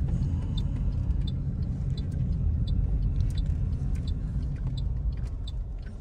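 Low, steady rumble of a Toyota Corolla's engine and tyres heard from inside the cabin as the car drives slowly, with a faint light ticking repeating about three times every two seconds.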